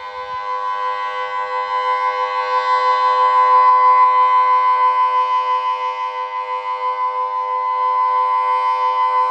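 Delta 6 civil-defence siren sounding the Austrian all-clear signal (Entwarnung): one steady, unwavering tone, heard from a distance, its loudness swelling and fading.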